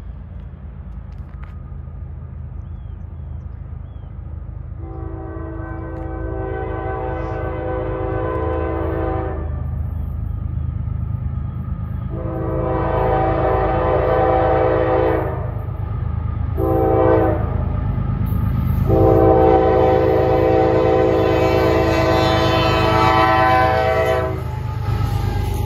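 CSX diesel freight locomotive's multi-note air horn blowing the grade-crossing signal, long, long, short, long, over the low rumble of the approaching train. The rumble grows steadily louder as the train nears and reaches the crossing.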